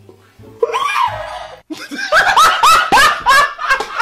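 A person laughing hard: one high cry about half a second in, then a fast run of high-pitched laughs, about three a second.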